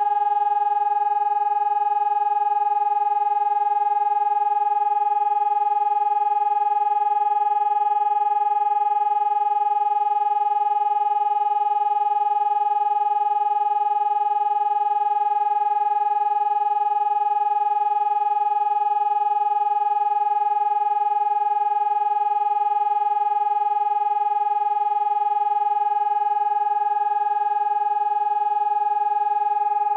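Pavian electronic siren sounding its siren-test signal: a single loud, steady tone with no rise or fall. This is the continuous-tone test signal of the national warning system.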